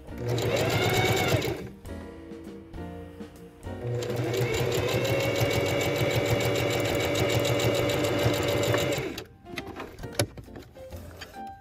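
Electric sewing machine stitching a rolled hem through a 10mm hemming folder. It makes a short burst of about a second and a half that speeds up and slows down, then a longer steady run of about five seconds from about four seconds in, stopping shortly after nine seconds. A single click follows about a second later.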